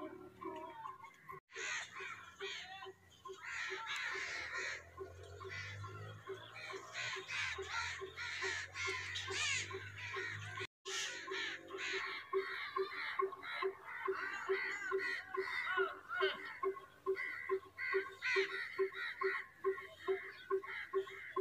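A large flock of crows cawing together, many overlapping calls at once. Under them a steady low throb repeats about three times a second, plainest in the second half.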